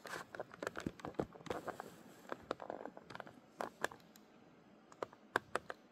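Irregular light clicks and taps, coming in quick clusters over the first two seconds and again near the end.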